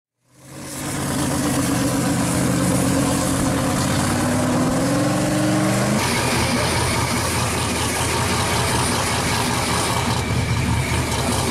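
Turbocharged engine of a 1969 Camaro pro-street car idling, its pitch creeping up slightly near the middle. About halfway through the sound changes abruptly to a rougher, noisier steady running.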